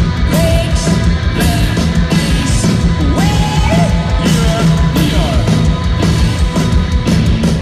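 Rock band playing live and loud: drums, distorted electric guitars and bass, with a sung vocal line over them.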